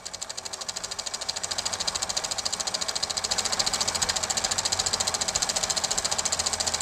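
Old film projector running as an end-card sound effect: a rapid, even mechanical clatter of about a dozen clicks a second, growing louder over the first two seconds and then steady.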